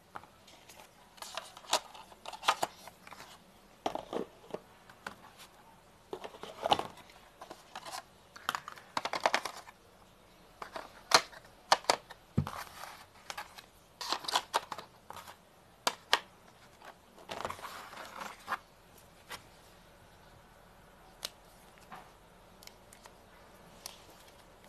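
Unpacking a smartphone retail box by hand: clicks, taps, scrapes and rustles of cardboard trays, inserts and a clear plastic phone case being lifted out and set down on a table. The handling noises come thick and fast, then thin out to a few soft taps near the end.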